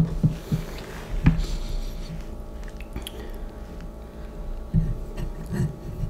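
A person eating spicy instant noodles: quiet chewing and mouth sounds, broken by a few short sharp clicks.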